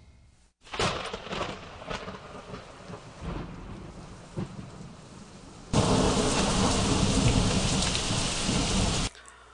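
Thunderstorm sound effect: rain with several sharp cracks of thunder, then a loud, steady downpour from about six seconds in that cuts off suddenly near the end.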